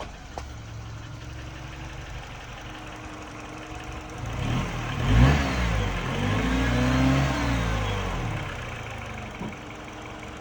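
Mini Cooper R56's 1.6-litre N12 four-cylinder engine idling with a knock, which the owner diagnoses as piston slap. About four seconds in the engine is revved up, held, and falls back to idle by about eight and a half seconds.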